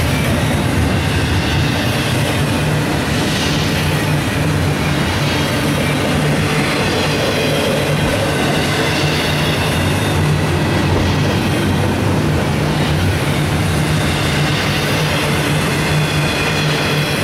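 Double-stack intermodal freight train passing close by: a steady rumble and clatter of the well cars' wheels on the rails.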